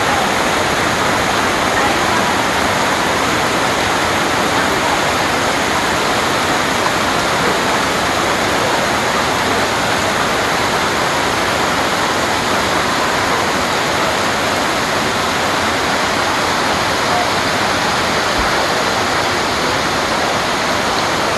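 Heavy rain falling steadily on rainforest foliage, a loud, continuous even hiss.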